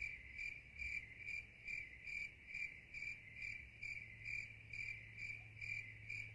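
Cricket chirping evenly, about two chirps a second, over a faint low steady hum.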